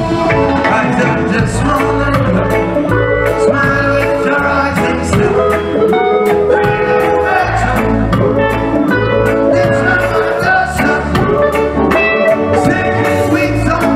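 Live reggae band playing: drum kit, electric bass and a lead singer at full volume.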